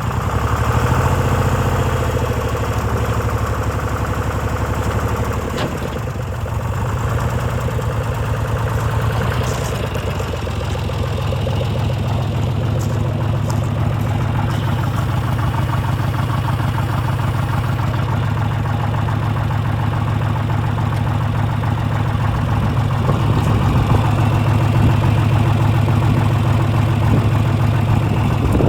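John Deere 2155 tractor's three-cylinder diesel engine running at a steady idle.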